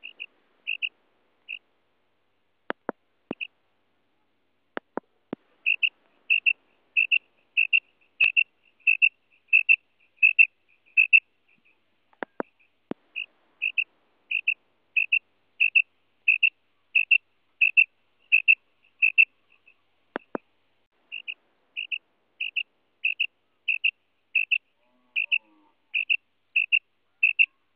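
Female common quail giving its 'krik' call: short high notes repeated about three times a second in long runs, broken by a few pauses. A few sharp clicks fall in the pauses.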